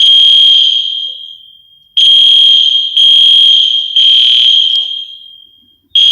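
EST Genesis fire alarm horns sounding a high-pitched temporal-three evacuation pattern: three blasts about a second apart, a pause, then three more. Very loud, each group dying away slowly in the echo of the empty building.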